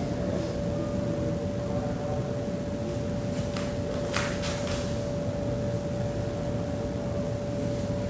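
Steady mechanical hum of the room's wall-mounted air conditioners, with one constant whining tone. A few faint brief rustles or clicks come a little past the middle.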